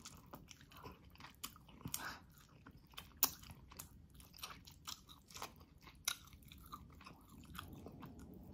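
A person biting and chewing tender braised beef rib meat torn off the bone. Wet mouth clicks and smacks come at irregular intervals, a few louder ones about 3 and 6 seconds in.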